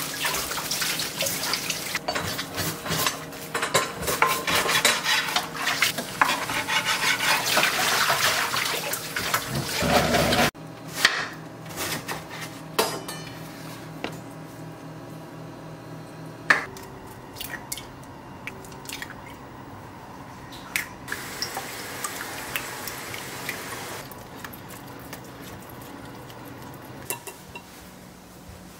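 Kitchen handling sounds. For about ten seconds there is a loud, dense crackling rustle that cuts off abruptly. After that come quieter, scattered clinks and taps of dishes and utensils, with a few light taps near the end.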